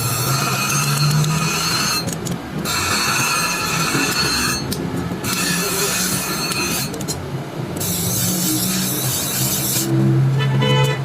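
Steel blade being ground on a power grinder in repeated passes: a squealing hiss with a steady motor hum beneath, dropping away briefly between passes about every two seconds.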